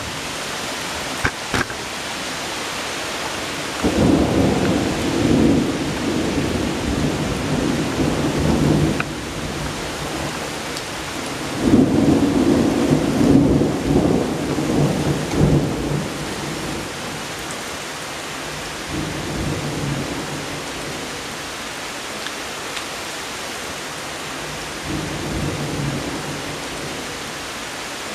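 Steady rain falling during a strong thunderstorm, with rolls of thunder: long rumbles about four seconds in and again about twelve seconds in, then fainter rumbles later.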